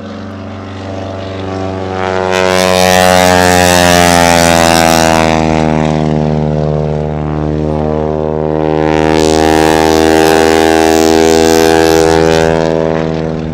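Piston engine and propeller of a smoke-trailing aerobatic airshow plane at high power, a loud pitched drone whose pitch slowly shifts. It swells to two loud passes, one about two seconds in and another near the end.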